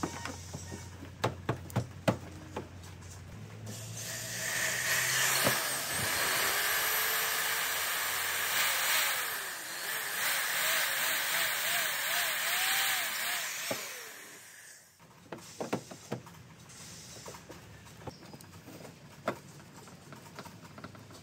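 Heat gun blowing hot air onto a plastic bumper: a steady loud hiss that starts a few seconds in, runs for about eleven seconds and cuts off suddenly. Before and after it, sharp clicks and scrapes of a screwdriver working on the plastic.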